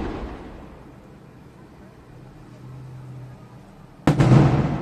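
Aerial firework shells bursting. One boom comes right at the start and dies away over about a second, then a louder boom comes about four seconds in.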